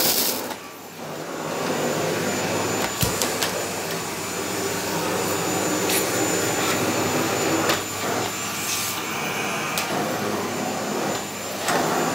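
Electrolux Silent Performer ESPC71DBT bagless canister vacuum cleaner (650 W) running steadily on carpet. There is a brief dip in level about a second in, and a few sharp clicks as the nozzle is worked.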